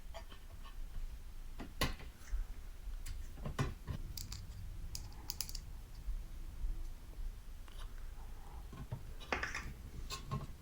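Scattered light clicks and taps of small hard parts being handled during amplifier reassembly, a few every couple of seconds, over a low steady rumble.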